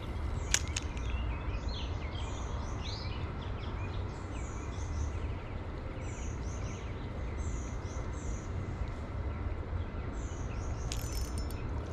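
Small birds chirping on and off over a steady low outdoor rumble, with a sharp click about half a second in.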